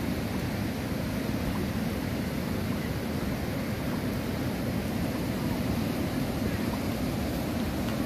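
Steady rush of river water over rapids.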